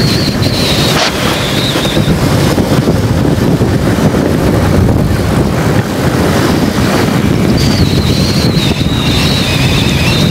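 Wind buffeting the microphone of a moving 70cc single-cylinder motorcycle, fitted with a double carburettor, with the bike's engine running underneath at road speed. A thin high whine slides slowly down near the start and again in the last few seconds.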